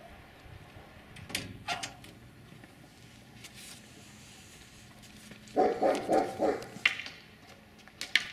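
A dog barking, a quick run of about four barks a little past halfway. A few sharp clicks and knocks come before and after it.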